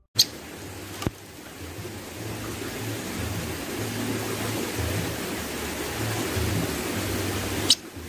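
Steady outdoor hiss with a low, uneven rumble underneath, like wind on the microphone. Two sharp clicks come at the start and about a second in, and a short high click near the end. No clear birdsong stands out.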